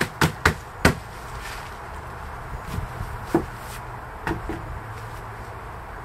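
Gloved hands knocking on the bottom of an upturned black plastic plant pot to loosen the soil inside. There are three sharp knocks in the first second, then a few softer ones about three and four seconds in.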